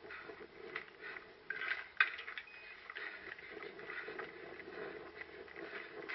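Footsteps of an orienteer moving over the ground, picked up by a head-mounted camera, with one sharp click about two seconds in.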